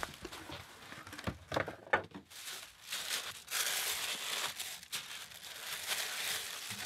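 Tissue paper rustling and crinkling as gloved hands unwrap a pair of trainers in a cardboard shoebox, with a few short light knocks about two seconds in.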